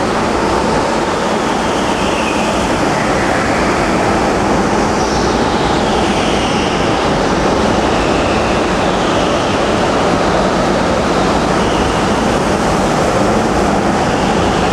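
Go-karts running laps on an indoor track: a steady, loud din of kart motors, with several rising and falling whines as karts pass.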